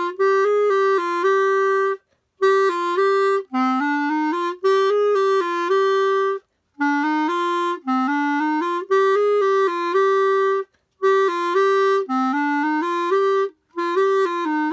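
Solo clarinet playing a simple melody in short phrases. Each phrase climbs in a few steps to a held note, and brief breath pauses separate the phrases.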